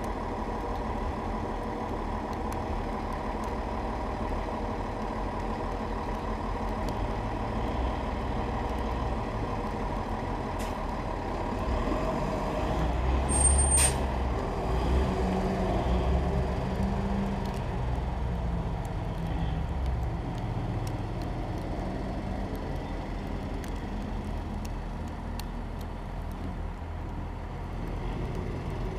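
Diesel engine of a snowplow dump truck with a sander body idling, then working harder as the truck pulls away and fades into the distance. About halfway through, a short sharp hiss, typical of air brakes releasing.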